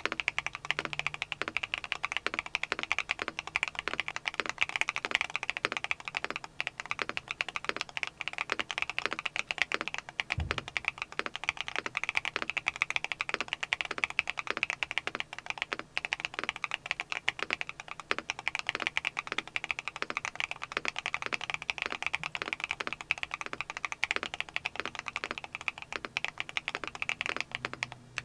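Continuous fast typing on a Neo 70 mechanical keyboard fitted with Akko Stellar Rose linear switches, factory lubed, with a muted bottom-out and a bright top-out. One low thump stands out about ten seconds in.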